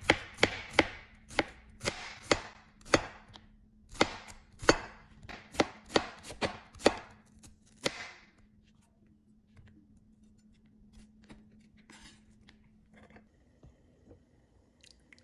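Knife chopping food on a cutting board, sharp irregular strokes about twice a second for the first eight seconds, then only a few faint light taps.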